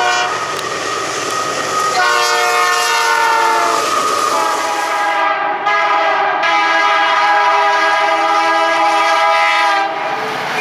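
Diesel freight locomotive horns blowing over the rumble of the passing train: a long blast that sags slightly in pitch, then, after a cut, a BNSF locomotive's horn sounding steadily for several seconds as it nears a grade crossing, stopping shortly before the end.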